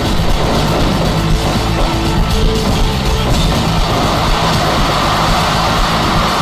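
Loud, dense music with a rock-like sound that plays continuously, without a break.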